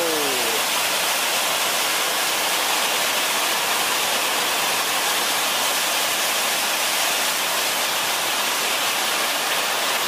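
Waterfall pouring down a rock face into a pool: a steady rush of falling water.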